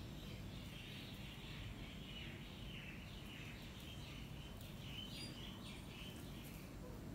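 Faint chirping of small birds, a run of many short twittering calls, over a steady low background hum.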